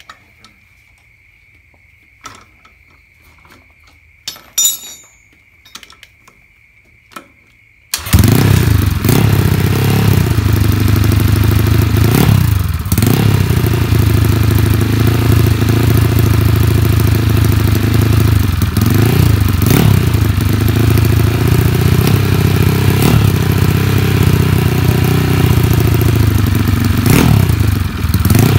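A Yamaha Mio scooter's bored-up 200cc single-cylinder engine, with an aftermarket racing exhaust, starts suddenly about eight seconds in, after a few faint clicks. It then runs loudly, its pitch dipping and recovering about three times.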